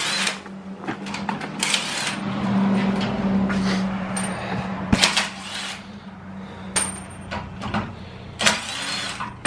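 Scattered clatter and knocks of parts and tools being handled, with a sharp knock about five seconds in, over a steady low hum.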